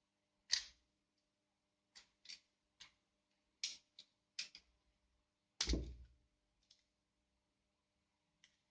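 Scattered sharp clicks and taps from a blade and fingers working at the heat-shrink sleeve on a LiPo battery lead, with one heavier knock about six seconds in.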